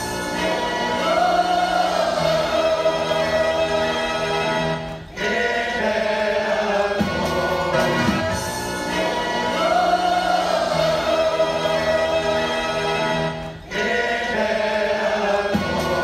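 Choral music: massed voices sing over an accompaniment, and a sung phrase of about eight seconds comes round twice, each time ending in a brief break.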